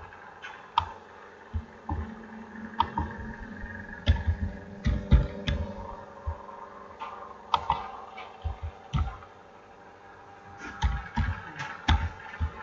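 Irregular clicking of a computer mouse pressing keys on an on-screen keyboard, some clicks with a low thump. A quick run of clicks comes near the end, all over a steady low hum.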